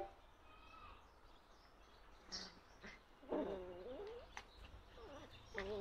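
Puppies whining faintly: one wavering, high-pitched whine a little over halfway through, and another starting near the end.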